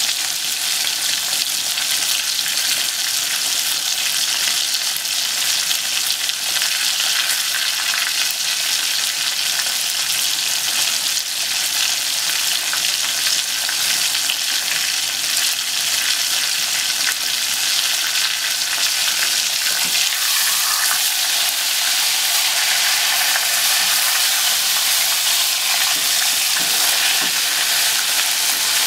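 Breaded pork cutlets (tonkatsu) deep-frying in a pot of hot oil: a steady crackling sizzle of bubbling oil.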